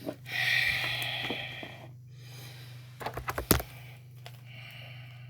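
A breathy hiss of a voice lasting about a second and a half, then a quick cluster of sharp plastic clacks about three seconds in, the last the loudest: action figures being knocked together.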